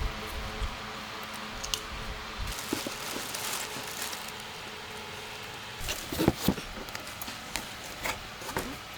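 Chopsticks and bowls clinking and tapping during a meal: scattered light clicks, with a few louder clacks about six seconds in and again near the end.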